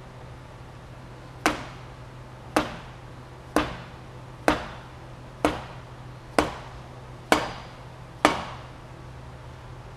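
Eight hammer blows, about one a second, on a lineshaft turbine pump's bowl assembly, each a sharp strike with a short ringing tail.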